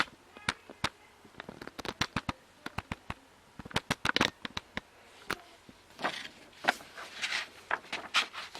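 Paper poster being handled and folded, with irregular sharp paper crackles and short rustles.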